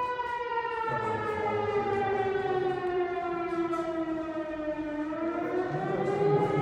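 Town fire siren wailing, a signal calling out the fire department. Its pitch sinks slowly for about five seconds, then starts rising again near the end.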